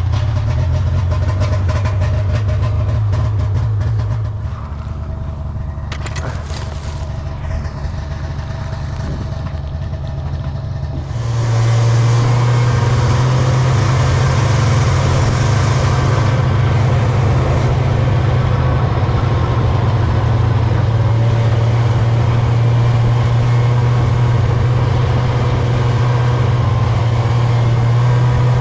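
A vehicle engine running steadily while driving, with a constant low hum. About eleven seconds in it gets louder and takes on more hiss.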